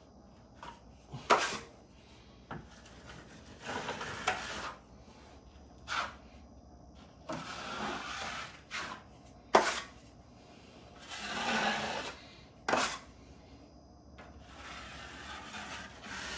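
Drywall knife scraping joint compound across a wall in strokes about a second long, with sharp clacks between strokes.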